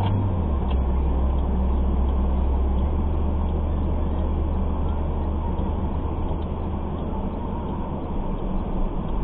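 Dashcam recording from inside a car: a steady low engine hum with road and cabin noise, muffled through the car body.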